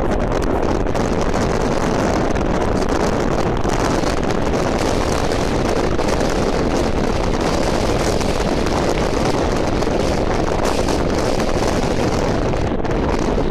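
Steady road and wind noise of a car driving along the track, an even rushing sound with no distinct engine note.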